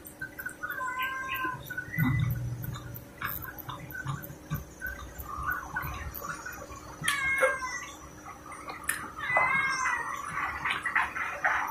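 A cat meowing several times in short, arched calls, over the wet clicks of close-up chewing and lip-smacking.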